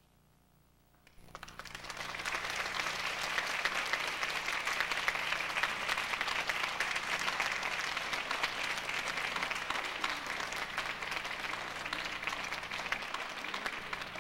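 Audience applauding, breaking out of near silence about a second in and building within a second to steady clapping.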